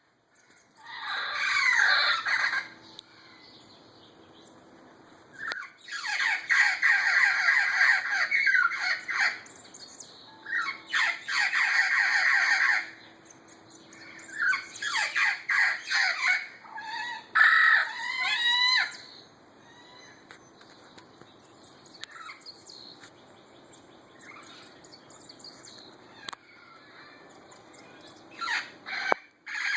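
Wild parrots giving harsh, screeching squawks in loud bouts of a few seconds each, with fainter calls from other parrots farther off in between.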